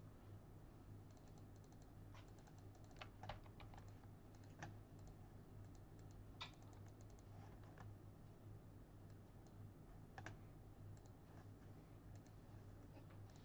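Faint, irregular clicks of a computer keyboard and mouse being used, over a low steady hum.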